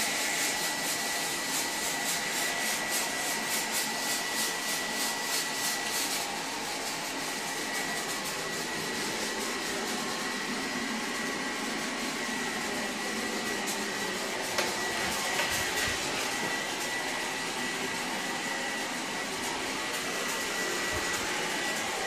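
Kam KHM800 haze machine running and pumping out haze: a steady fan-like hiss with a faint high whine. A fast pulsing rides on it for the first six seconds or so, then stops.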